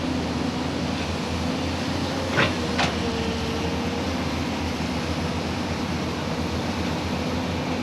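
Excavator's diesel engine running steadily, with two sharp knocks about two and a half seconds in.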